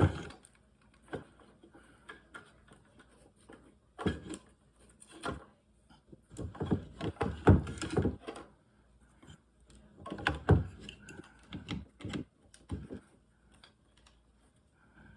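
Irregular plastic clicks and knocks as a replacement speaker is handled and pressed into a handheld CB radio's housing, with heavier clusters of knocks about four, seven and ten seconds in.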